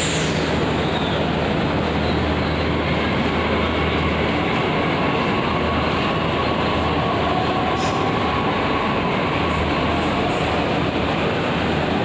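Delhi Metro train running: a steady rumble with a faint high whine over it.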